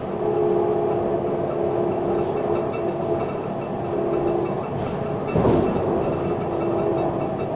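Alstom Citadis tram running along its line, heard from inside the passenger saloon: a steady hum from the traction drive over wheel and rail running noise, with a single knock about five and a half seconds in.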